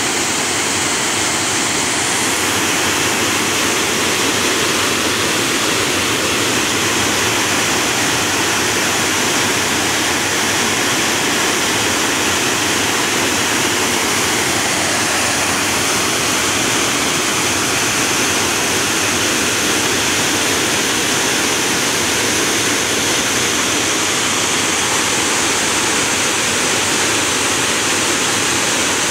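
Water pouring steadily over a low concrete dam and churning into white water below: an even, unbroken rushing.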